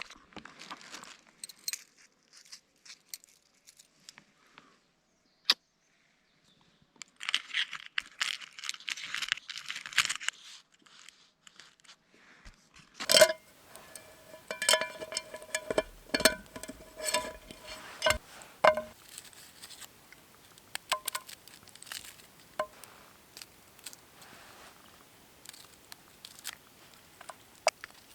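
Metal camp gear being handled: a sharp metallic strike, then several seconds of clinks and knocks that ring with clear tones, after an earlier stretch of rustling and crinkling.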